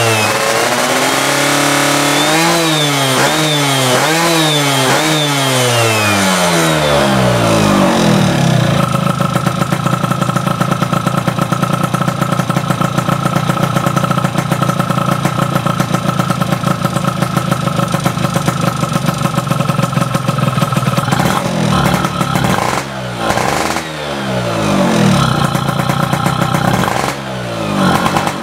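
Yamaha F1ZR two-stroke single-cylinder engine revved up and down several times in the first few seconds, then idling steadily. Near the end the revs briefly dip and rise a few times while the Nibbi PE24 carburetor's adjustment screw is turned with a screwdriver to find its setting.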